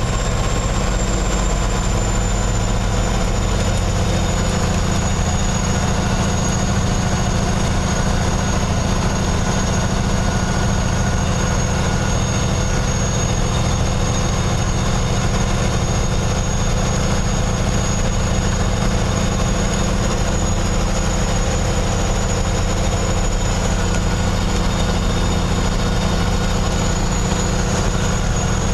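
Kenworth semi-truck's diesel engine running, heard from inside the cab as a steady low drone, with a faint high whine above it.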